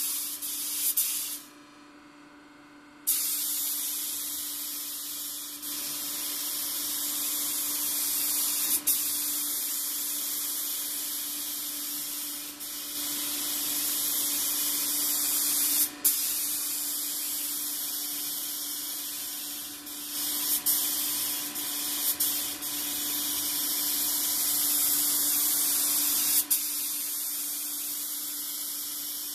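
DeVilbiss GTi Pro spray gun hissing as compressed air at about 30–40 psi atomises blue two-pack base coat in long trigger-held passes. The hiss cuts out for about a second and a half near the start and breaks off briefly a few more times as the trigger is released, over a steady low hum.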